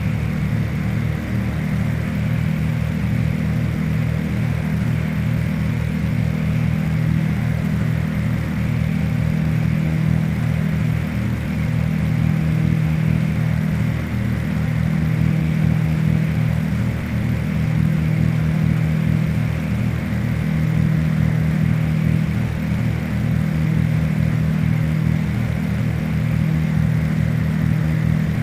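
Cessna T337G Skymaster's front and rear piston engines in push-pull layout, running with a steady drone.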